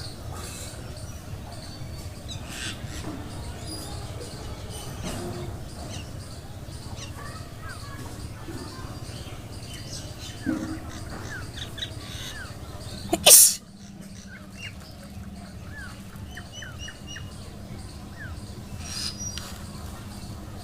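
A woman sneezes once, sharply and loudly, about two-thirds of the way through, the sneeze brought on by tickling her nose with a blade of grass. Small birds chirp on and off around it.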